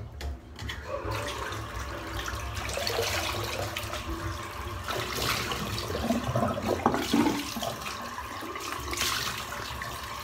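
Tap water running into a bathroom sink, with splashing as shaving lather is rinsed off the face by hand. It swells in a couple of louder splashy stretches.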